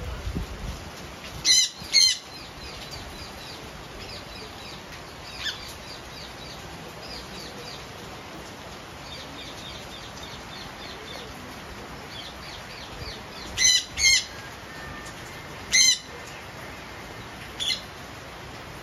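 A flock of Indian ringneck parakeets calling: six loud harsh screeches, in two pairs and then two singles, with quieter rapid chattering between them. Wings flap as the birds fly about the cage, over a steady hiss of rain.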